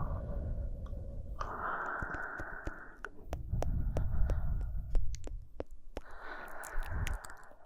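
Slow, close-miked breathing into the microphone: two long breaths, about a second and a half in and again near the end, with soft mouth clicks between them.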